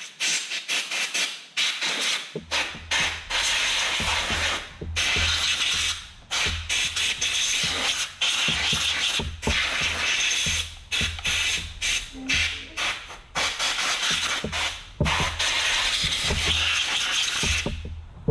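Repeated hissing gusts of air blowing dust out of a Stihl MS180 C-BE chainsaw's air filter and filter housing, each gust lasting about half a second to two seconds with short breaks between them.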